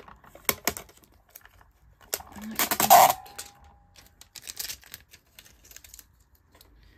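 Sticky tape peeled off a plastic toy hutch's roof, with a short loud rip about two and a half seconds in, between light clicks and taps of hands on the hard plastic.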